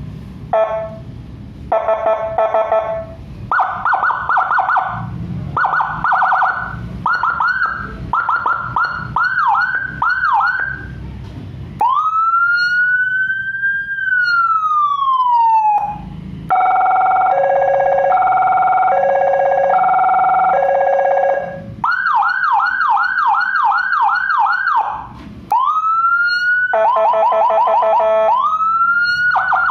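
CJB100A electronic siren with Whelen tones cycling through its modes. It starts with short bursts of a steady horn tone, then a yelp that speeds up, a long wail that rises and slowly falls, a hi-lo alternating two-tone, and fast yelp again. Near the end come a short horn burst and a rising wail.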